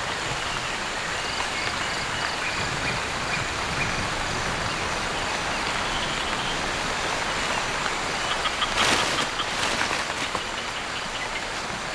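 Heavy tropical rain falling steadily on rainforest foliage, an even hiss, with a brief louder spatter about nine seconds in.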